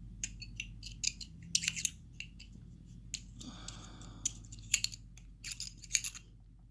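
Metal tool clicking and scraping against the parts of a padlock being taken apart, as it is forced at a stuck piece. The sharp clicks come irregularly, with one longer rasping scrape about three and a half seconds in.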